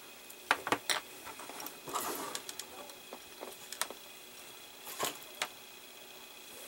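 Scattered light clicks and taps of a small hand screwdriver and metal screws on model-kit parts, with brief handling rustles, as tiny screws are driven through rubber washers into the parts.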